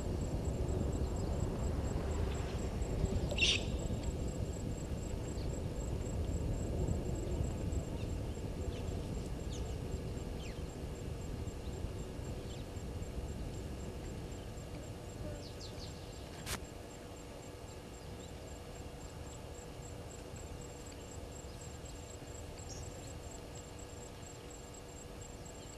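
Outdoor bush ambience from a waterhole camera microphone: a low rumbling hiss that slowly fades, a few short bird calls, and one sharp click about sixteen seconds in, over a faint steady electrical hum.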